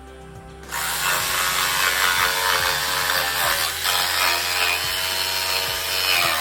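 A power tool working wood starts up suddenly about a second in and runs with a loud, rasping noise, over steady background music.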